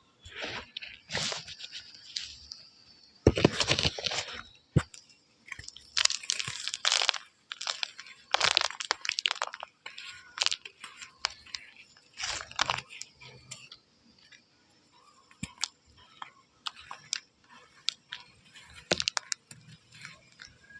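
Soft 'gummy' chalk crunching close up, in a series of crisp crackly bursts with short pauses between them.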